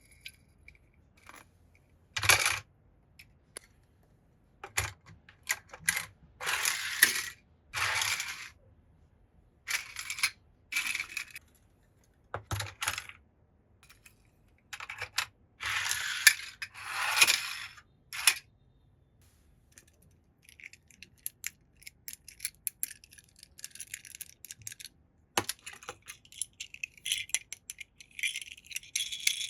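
Toy cars clinking and clattering together as they are handled, in bursts of several seconds, then a run of quick light rattling in the last third.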